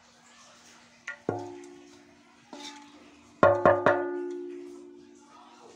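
Metal spoon knocking against a steel cooking pot, the pot ringing with several clear tones that fade slowly after each strike. There are a few single knocks, then three quick, louder knocks a little past halfway.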